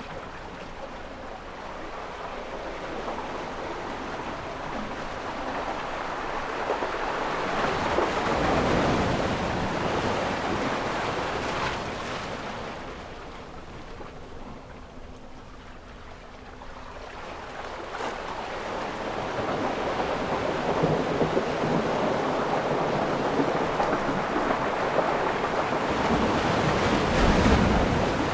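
Ocean waves washing in. The surf swells to a peak about a third of the way in, eases off, then builds again through the second half.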